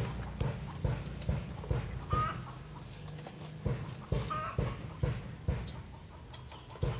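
Chickens clucking, with short chirping calls about two and four seconds in, over a run of knocks about twice a second.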